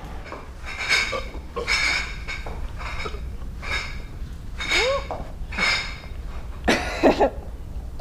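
Footsteps in sneakers on a hard floor, about one step a second, with two brief voice-like sounds near the end.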